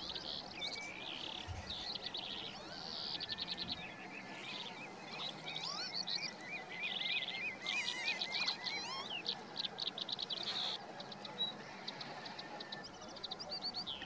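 Several wild birds calling over one another: many short high chirps, fast trills and slurred notes, with a quick run of repeated wavy notes near the middle.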